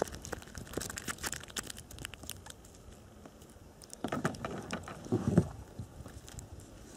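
Close handling noise as a small freshly caught fish is grabbed and held in the hand: a run of quick clicks and rustles, then a few louder scuffs about four to five and a half seconds in.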